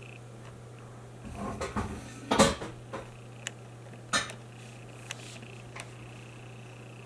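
Scattered sharp knocks and clicks, a quick cluster followed by the loudest one about two and a half seconds in, then single clicks spaced about a second apart, over a steady low hum and a faint high whine that comes back near the end.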